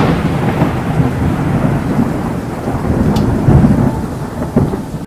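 Long rolling rumble of thunder, dying away after a loud crack, swelling once more about three and a half seconds in and fading out near the end.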